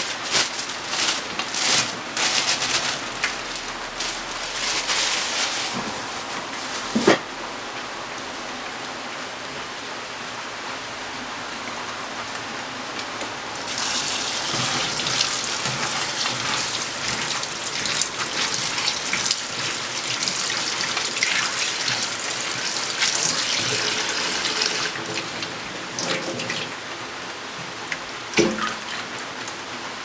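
Tap water running into a plastic colander of bean sprouts in a sink, splashing as a hand tosses the sprouts under the stream. It is louder and splashier in the first few seconds and again through the middle, with a sharp knock about seven seconds in.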